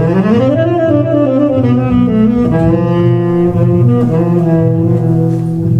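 Saxophone and double bass playing an instrumental phrase of a slow jazz ballad, the saxophone opening with a rising glide into held notes over the bass line.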